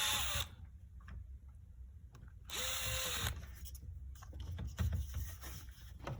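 Electric drill with a small bit running in two short bursts, each with a steady whine, as it drills out a broken plastic shutter clip. The first burst stops about half a second in, and the second comes about two and a half seconds in and lasts under a second. Faint clicks and handling noises fall between the bursts.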